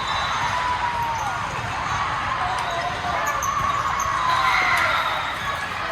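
Indoor court ambience during a volleyball rally: short squeaks gliding up and down from shoes on the gym floor, over a hum of distant voices, with a few sharp knocks.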